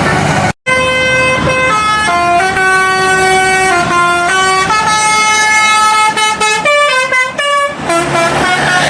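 Bus 'telolet' musical horn playing a tune of stepped notes, each held for about half a second, breaking into quick short toots near the end.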